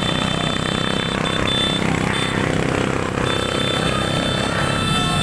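Many motorcycle engines running and revving together in a loud, steady din.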